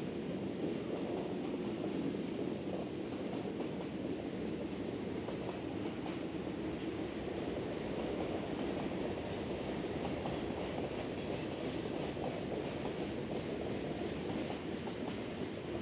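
Freight train rolling past, a steady rumble of steel wheels on the rails.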